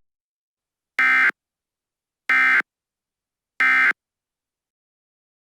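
Three short, identical buzzing bursts of Emergency Alert System (SAME) digital data, about a second and a quarter apart: the end-of-message code that closes an EAS broadcast.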